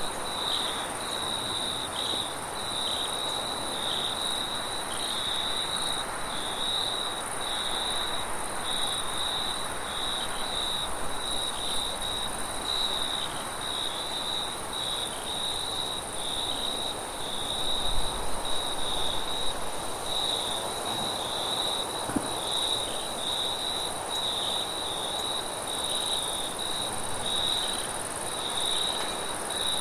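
Crickets chirping in a continuous pulsing trill, over a steady wash of wind noise that swells briefly with low rumbles about two-thirds of the way through.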